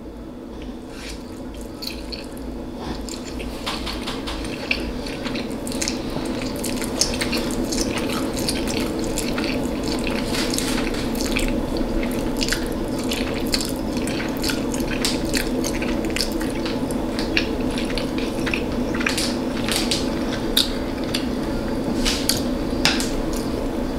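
Close-up eating: chopsticks clicking against a bowl and wet mouth sounds of chewing hot noodles, over a steady low hum.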